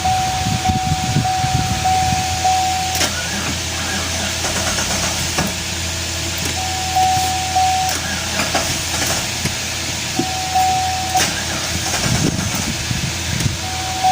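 Steady vehicle background noise with a repeating electronic warning chime, one tone beeping about twice a second in stretches that start and stop, and a few sharp clicks.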